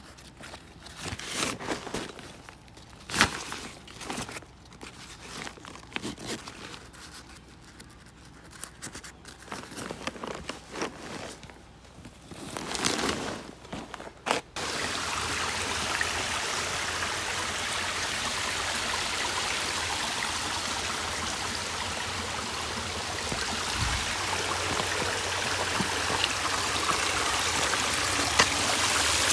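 Nylon backpack fabric and straps rustling and crinkling in short bursts as gear is handled. After an abrupt cut about halfway through, a small creek runs over rocks with a steady rush of water.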